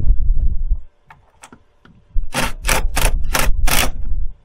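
Cordless drill-driver run in five short trigger bursts, about three a second, in the second half, driving a screw.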